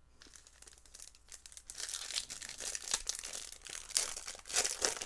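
Foil wrapper of a Bowman's Best trading-card pack being torn open and crinkled by hand, a dense crackle that grows louder about halfway through, with the sharpest crinkles near the end.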